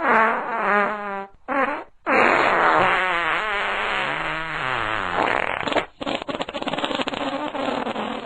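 A run of fart sounds: two short ones in the first two seconds, then a long one wavering up and down in pitch for nearly four seconds. A rapidly pulsing, rattling one follows about six seconds in.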